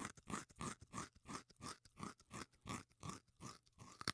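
A quick, even run of short crunching sounds, about three or four a second, that thins out near the end.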